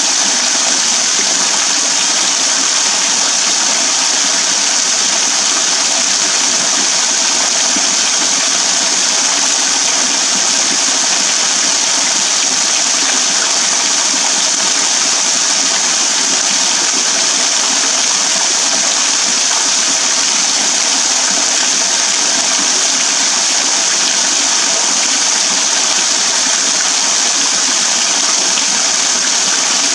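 Small waterfall: thin streams of water falling from a rock overhang and splashing into a shallow pool below, a steady, hiss-like rush of falling water.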